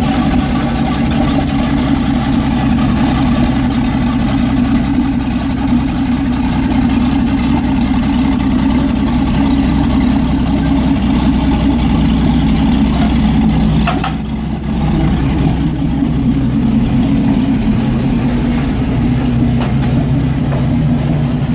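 Jagdpanther tank destroyer's engine running steadily at idle, with a brief dip in level and a short knock about two-thirds of the way through.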